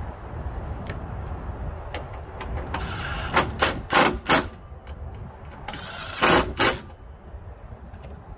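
Ratchet wrench clicking in two short runs, about three and a half and six seconds in, as a bolt at the top of a car's radiator support is worked, over a low steady rumble.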